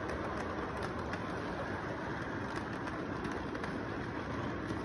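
Model freight train cars rolling along the track, a steady rumble with small clicks from the wheels.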